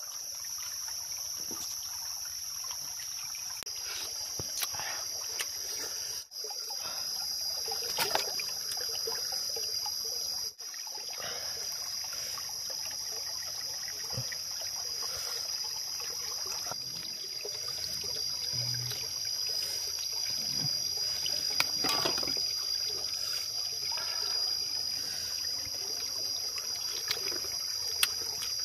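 Trickling water over a steady high-pitched insect drone, with scattered small clicks and knocks.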